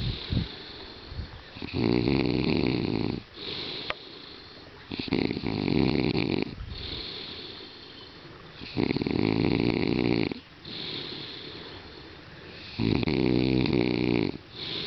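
A man snoring loudly in his sleep: four long snores about four seconds apart, with quieter breathing between them.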